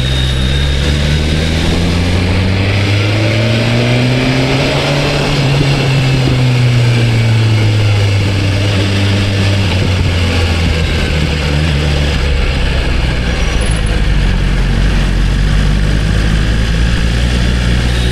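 BMW S1000RR inline-four engine with its stock exhaust, heard from the moving bike: the engine note rises for a few seconds under acceleration, then falls away slowly as the bike eases off, settling into a steady low cruise.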